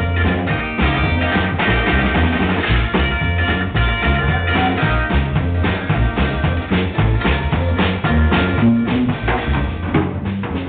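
A small live band jamming: a drum kit keeps a steady beat of close hits over electric guitars, with a heavy low bass underneath.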